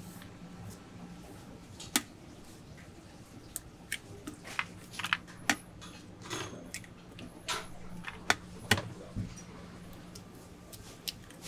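Scattered sharp clicks and knocks of plastic pitchers and a plastic bag being handled at a food stall counter, over a steady low hum.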